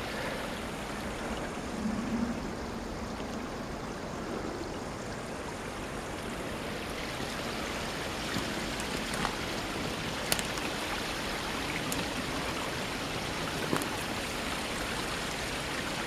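Stream water running through and over a beaver dam of piled sticks: a steady rushing trickle, with a few faint clicks here and there.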